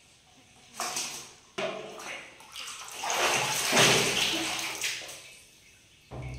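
Bath water splashing and sloshing. Two short splashes come about one and one and a half seconds in, then a longer, louder stretch of splashing runs from about three to five seconds in.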